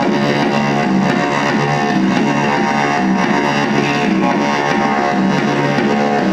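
Guitar music playing steadily, with a quick run of plucked notes over a low accompaniment.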